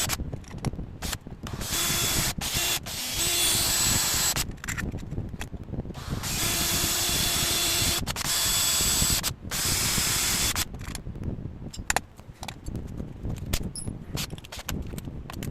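A handheld power tool runs in three bursts of a couple of seconds each, with a steady high whine over a rush of noise. Short pauses come between the bursts, and after them, about two-thirds of the way in, only scattered light clicks and knocks of handling remain.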